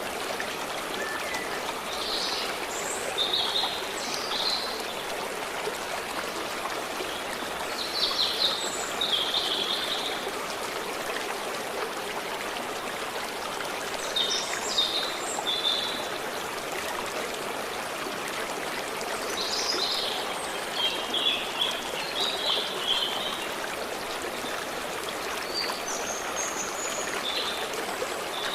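Steady rush of a flowing stream, with short phrases of bird song breaking in every few seconds.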